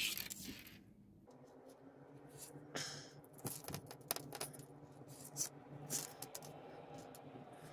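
Faint scattered clicks and ticks of steel leader wire and a fish hook being twisted by hand around a straw to make a haywire twist, with a low steady hum behind them from about a second in.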